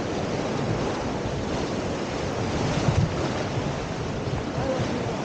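Fast river water rushing and churning past the bow of an inflatable raft, a steady roar of whitewater, with wind buffeting the microphone in low thumps.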